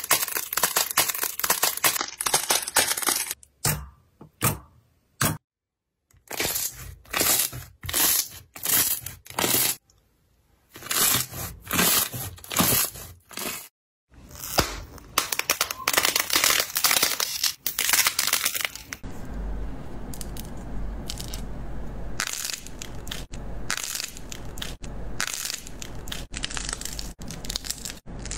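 Clay slime being squeezed, bent and pulled apart by hand: repeated bursts of cracking and tearing, each lasting about a second. From about 19 seconds in, the crackle becomes steadier and quieter.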